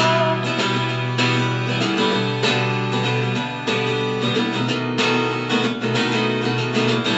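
Twelve-string guitar strung with only eleven strings, strummed in a steady rhythm of chords that ring on between strokes.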